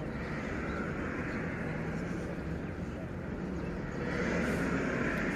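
Steady road traffic noise, growing slightly louder about four seconds in.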